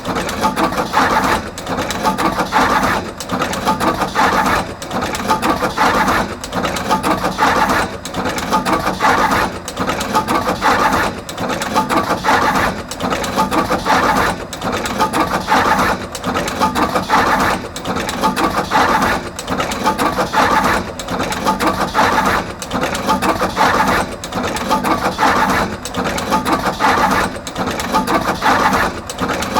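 Artos CR22 automatic wire cut-strip-crimp machine running, cycling with a steady mechanical rhythm that repeats every second or two as it processes wires and crimps terminals on both ends.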